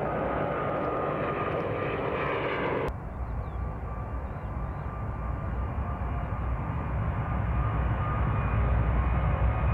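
Jet airliner engines running, a steady rushing noise. About three seconds in it changes abruptly to a duller, deeper rumble that grows louder toward the end.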